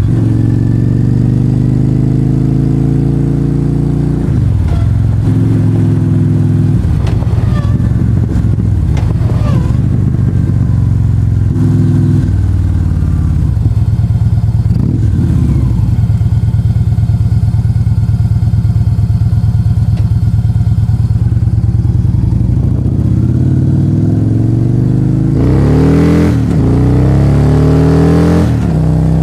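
Victory Cross Country motorcycle's V-twin running loud through short-baffle mufflers while riding. Its steady note steps in pitch several times, and near the end the revs swing up and down.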